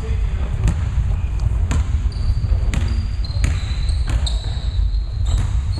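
Basketball bouncing on a hardwood gym floor, a sharp thud about once a second, with short high squeaks of sneakers over a steady low rumble of the hall.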